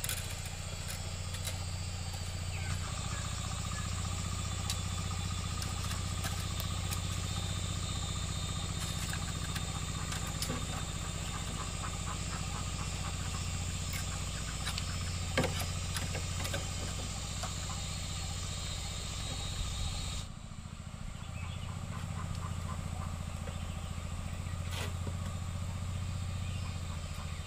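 A steady low drone with a hiss above it, with scattered sharp clicks and knocks from wire being twisted with pliers around bamboo poles and from handling the bamboo frame.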